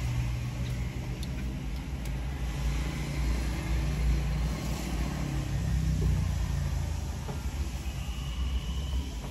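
Car engine idling, heard inside the stationary car's cabin as a steady low rumble that swells slightly midway.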